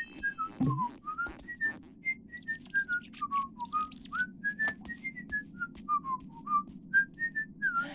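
A tune whistled in short, separate notes that wander up and down in pitch, over light clicks and a low hum.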